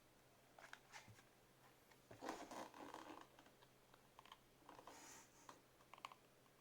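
Quiet typing on a Zerosixty 60% acrylic gasket-mount custom mechanical keyboard with a half plate and Jwick Black linear switches: scattered keystrokes, with a quicker run of keys about two seconds in and another around five seconds in.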